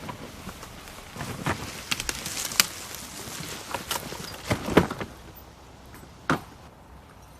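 A series of irregular knocks and clicks over a faint steady hiss, the sharpest about halfway through and a last one near the end.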